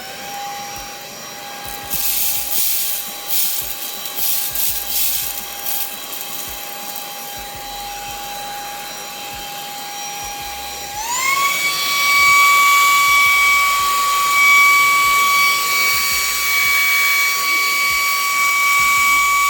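Wyze cordless handheld vacuum running with a steady high whine, with debris rattling up the nozzle a few seconds in. About halfway through its pitch steps up and it gets louder, as when it is switched from normal speed to turbo mode. It switches off right at the end.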